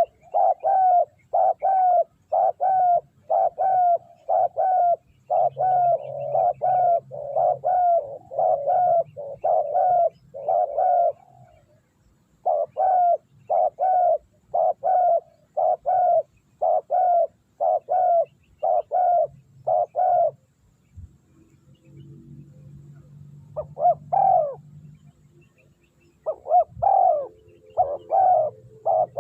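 Spotted dove calling in a fast, steady series of short cooing notes, about two to three a second. The calls break off briefly about eleven seconds in, and again for several seconds near the end. A fainter, lower sound fills the longer gap.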